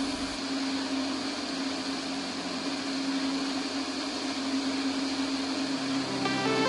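Light aircraft's engine and propeller droning steadily on final approach, with a constant low hum under a wash of wind noise. Music begins near the end.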